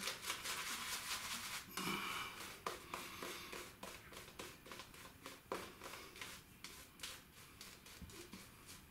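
Alpha Shaving Outlaw silvertip badger shaving brush working shaving soap lather on a stubbled face: quick, repeated wet swishing strokes of the bristles.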